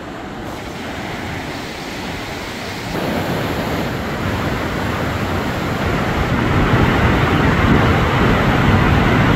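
Fast mountain river rushing over rocks: a steady roar of white water, stepping up in level about three seconds in.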